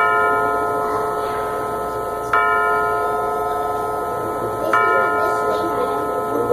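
Mantel clock chime striking three times, about two and a half seconds apart. Each stroke is a bell-like tone with several ringing overtones that carries on until the next one.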